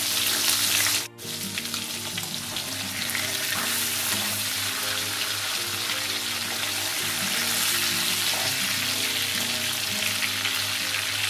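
Hilsa fish pieces sizzling steadily as they shallow-fry in hot mustard oil. Faint background music runs under the sizzle after a brief dropout about a second in.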